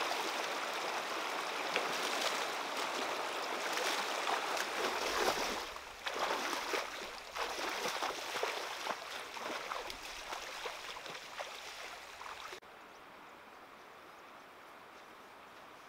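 Shallow, stony river rushing, then the splashing steps of two people wading quickly through the water. Near the end it cuts abruptly to a much quieter, steady background.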